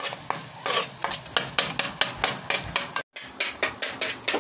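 Slotted metal spatula scraping and knocking against a metal wok while stirring and breaking up frying eggs: a quick, uneven run of scrapes and clicks, several a second. It cuts out briefly about three seconds in, then carries on.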